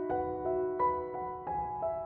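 Gentle background music carried by a piano-like keyboard melody, a new note struck every third of a second or so.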